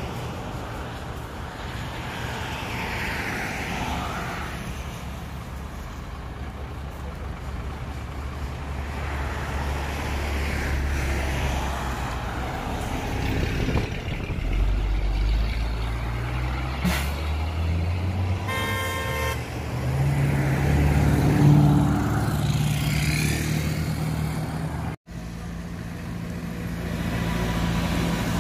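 A 5-ton dump truck's diesel engine runs, then revs and builds up as the truck pulls away, with other traffic passing. A vehicle horn toots briefly about two-thirds of the way in. After a sudden break near the end, another heavy engine runs steadily.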